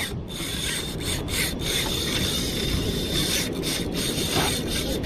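Lure Killer 6000 spinning reel being worked against a hooked fish: a steady rasping of reel and line, over wind and sea noise.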